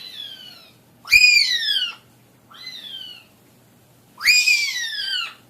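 Parrot calling: four high-pitched calls, each rising and then falling in pitch, quieter and louder in turn.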